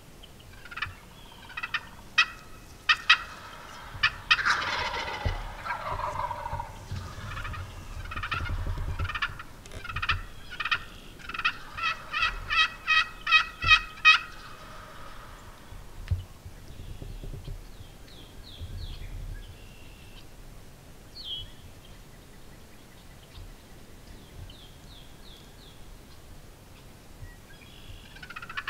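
Wild turkeys gobbling and calling in runs of short, sharp notes, busiest in the first half, with a fast string of calls about twelve to fourteen seconds in. After that only a few faint, higher calls are heard.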